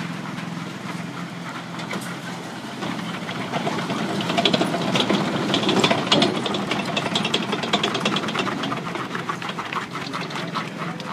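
M1A1 Abrams tank's AGT1500 gas turbine running with a steady hissing whine as the tank rolls off the transporter trailer and drives past, its tracks clanking in rapid clicks. It grows louder from about three seconds in and is loudest around the middle as the tank passes closest.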